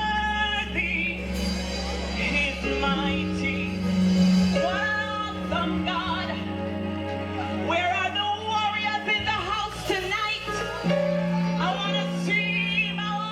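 Gospel praise team singing a worship song over instrumental accompaniment: held bass notes and chords under the voices.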